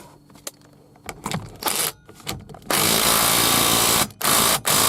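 Power tool tightening the steering wheel nut: a few short bursts, then a long loud run from about halfway in, broken by two brief pauses.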